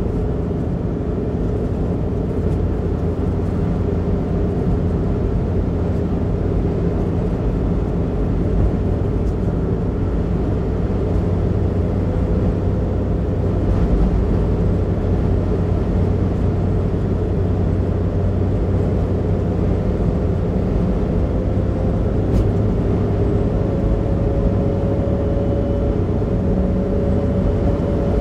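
Steady road and tyre rumble with the engine running, heard inside a car's cabin at highway speed. A faint whine climbs a little in pitch over the last several seconds.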